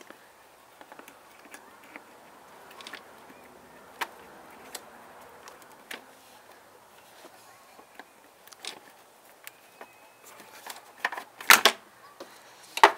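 Scattered small clicks and knocks of needle-nose pliers and a plastic hose clip being worked loose on a hose connector in an engine bay, with two louder knocks near the end as the connector comes free.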